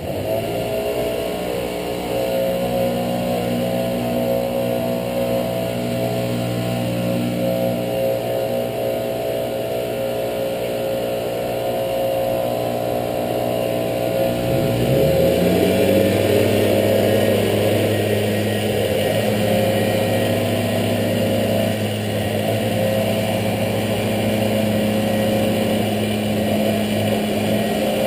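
Gas backpack leaf blower engine running steadily at high throttle. About halfway through, its pitch dips briefly and then rises to a higher, louder steady note as the throttle opens further.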